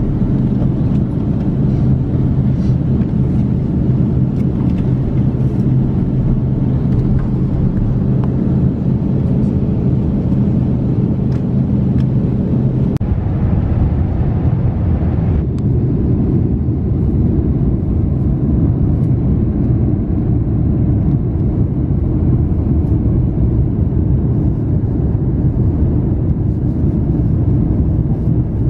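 Airliner's jet engines at takeoff power, heard from inside the cabin as a loud, steady rush. A low steady rumble under it stops about halfway through as the plane leaves the runway and climbs.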